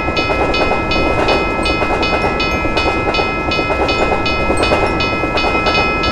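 American-style railroad crossing bell ringing steadily, about two and a half strokes a second, over the rumble of a train passing through the crossing.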